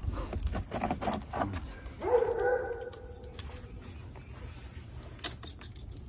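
A dog gives one whining yelp about two seconds in, rising at the start and then held for about a second. Before it come a few light knocks from wooden beehive parts being handled.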